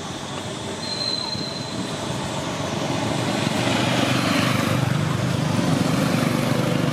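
A passing motor vehicle's engine rumble, steady and growing louder from about three seconds in.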